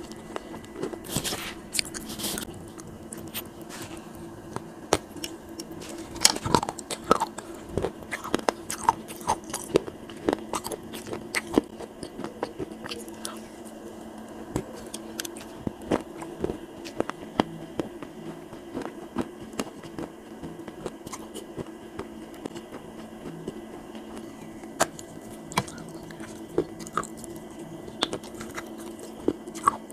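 Close-miked crunching bites and chewing of dry clay cups, a scatter of sharp crackles and snaps, busiest in the first half, over a steady low hum.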